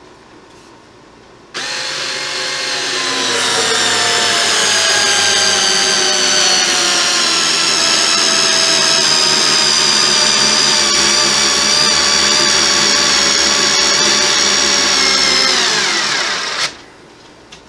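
Ryobi 4-volt cordless screwdriver's motor and gearbox whining as it drives a 3-inch coarse screw into pressure-treated pine on its low speed, starting about a second and a half in. The pitch sags steadily as the motor struggles under the load. It winds down and stops about a second before the end, with the screw driven home.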